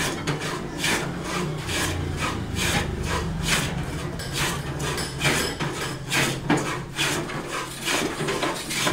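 Wooden snooker cue shafts being shaved by hand with a scraping tool, in repeated rasping strokes about one to two a second.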